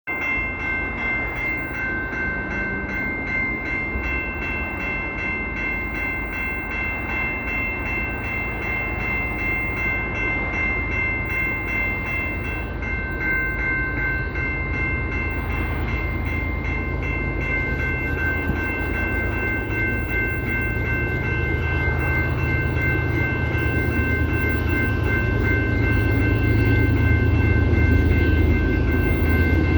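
CP Rail train running, its low rumble growing louder toward the end, with a steady high-pitched tone held throughout.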